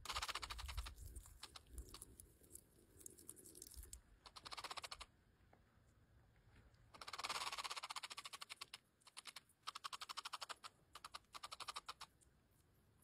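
Several short bursts of fast clicking, each lasting about a second, spread through an otherwise quiet stretch.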